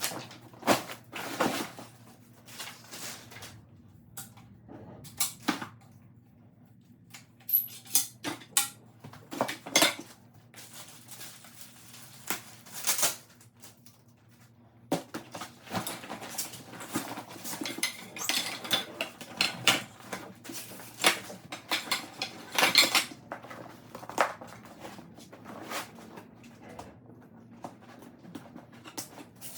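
Hard plastic and metal paddleboard gear being handled: irregular clicks, knocks and clatters, sparse at first and busier from about halfway through.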